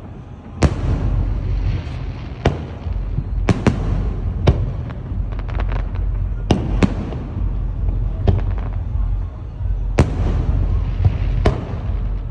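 Aerial fireworks shells bursting: about a dozen sharp booms at irregular intervals, each trailing off in an echo, over a steady low rumble.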